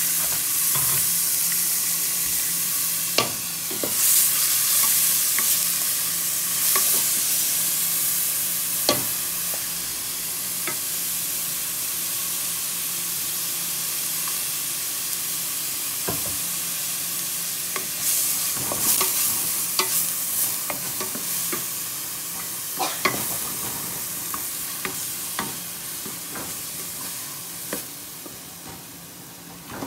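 Minced onion, garlic and ginger sizzling in hot oil in an aluminium pot, stirred with a wooden spoon that now and then knocks and scrapes against the pot. The sizzle is loud at first and slowly dies down.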